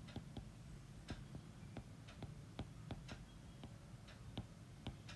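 Faint sharp clicks at an uneven pace, a few each second, over a low steady hum.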